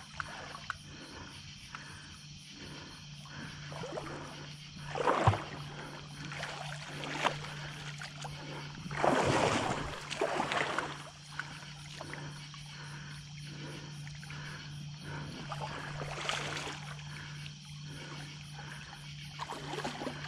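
Water splashing in shallows as a large hooked brown shark thrashes at the waterline. The loudest splashing comes about nine to ten seconds in, with shorter bursts about five seconds in and again near sixteen seconds, over a faint steady hum.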